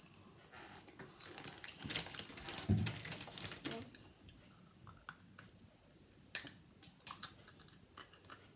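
A person chewing a crunchy snack close to the microphone: scattered crisp crunches and clicks, densest around two to three seconds in, with a short low hum from the eater near three seconds.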